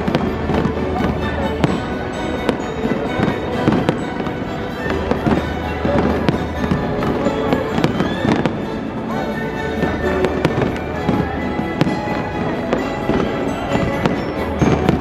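Fireworks display: a continuous barrage of bangs and crackles, many in quick succession, with music playing underneath.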